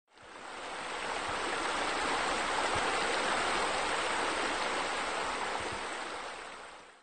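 Steady rushing noise, an added sound effect that fades in at the start and fades out about seven seconds later.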